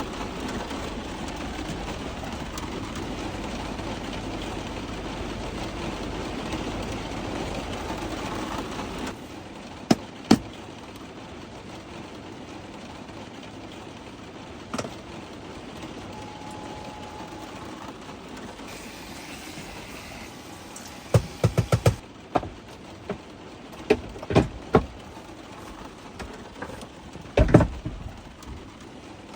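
Steady rumble of the Ram ProMaster City's engine idling, with its heater running, that drops away abruptly about nine seconds in. After that, a quieter interior with scattered sharp clicks and knocks, including a quick run of them about two-thirds of the way through.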